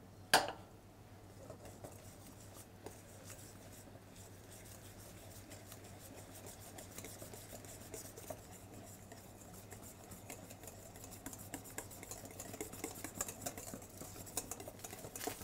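Wire whisk stirring and scraping potato purée in a stainless steel bowl as warm milk and cream are worked in, with a sharp clink of metal just after the start. The stirring is faint, grows a little louder near the end, and has a steady low hum beneath it.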